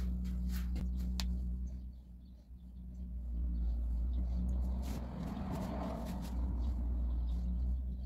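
A steady low machine hum, with a few small clicks about a second in as a bicycle tire's valve core is handled, and a brief rise of rushing noise about five seconds in.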